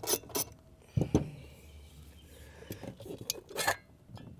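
Small metallic clicks and clinks of a nut driver, screws and the metal rear end cap of a pool pump motor as the cap is unscrewed and lifted off, with a duller knock about a second in.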